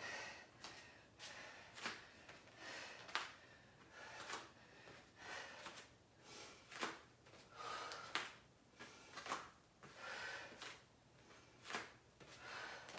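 A woman's breathing while she exercises, faint and rhythmic: short, sharp breaths roughly once a second with softer breathy exhales between them, as she works through lunges with dumbbell curls.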